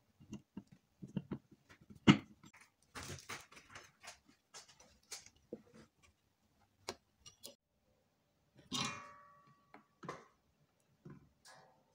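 Irregular clicks and knocks of a screwdriver and metal parts being handled as an amplifier IC is screwed to its aluminium heatsink and the board is moved. There is a sharp knock about two seconds in and a short metallic ring near nine seconds.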